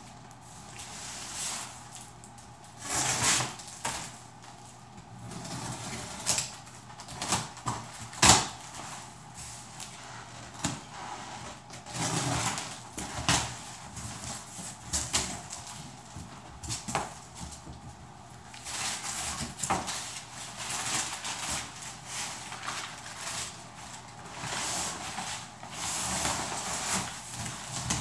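A large cardboard shipping box being opened and handled: cardboard rustling and scraping as the flaps are opened and the box is pulled about, with scattered knocks and thumps. The loudest is a sharp knock about eight seconds in.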